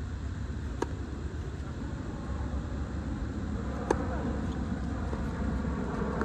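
Tennis ball struck by rackets during a doubles rally: a fainter hit about a second in, then a sharp, louder hit about four seconds in. A steady low rumble runs underneath.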